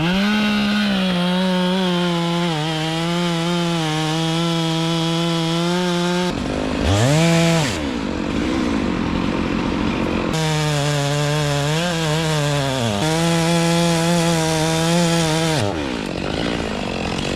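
Chainsaw engine revved up and held at high speed, as when cutting, with its pitch sagging slightly under load. It drops back toward idle about six seconds in, with a brief throttle blip, then revs up and cuts again from about ten seconds in until it drops back near the end.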